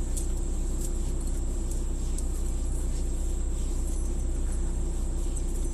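Steady low rumble inside a car's cabin from the running car, with a faint steady hum over it.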